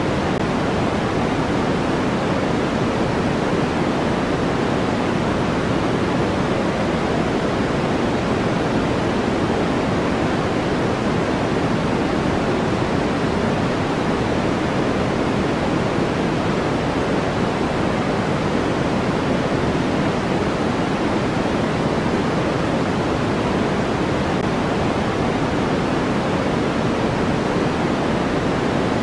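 Steady sleep-aid noise, an even hiss with no changes, fuller in the lows and middle than in the highs.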